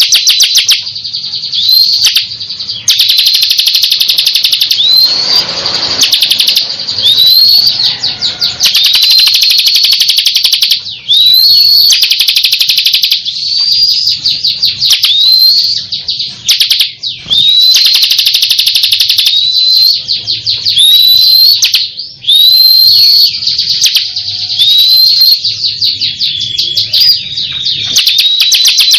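Ciblek kristal (bar-winged prinia) singing loudly and nonstop, in a champion bird's energetic 'gancor' song: fast rattling trills alternating with short upswept whistled notes that repeat every second or two.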